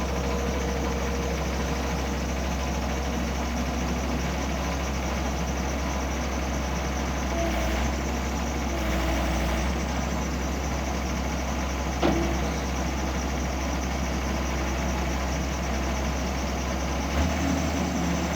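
John Deere 325 skid steer's diesel engine running steadily, likely at idle, with a single sharp knock about twelve seconds in and a shift in its low note near the end.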